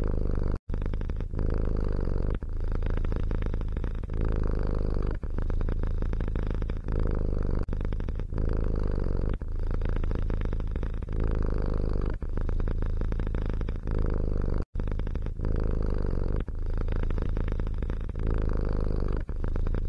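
A domestic cat purring steadily, with a short dip at every breath, every second or two. The sound cuts out completely for an instant twice, once near the start and once about three quarters through.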